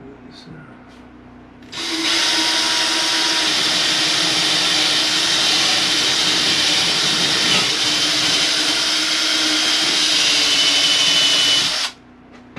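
Cordless drill boring a starter hole through the wall for a jigsaw cut. It starts about two seconds in, runs steadily for about ten seconds, and stops suddenly.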